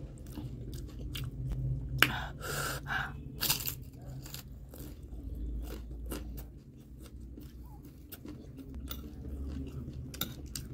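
A crisp fried panipuri shell bitten with a sharp crack about two seconds in, then crunched and chewed, with softer chewing clicks later on.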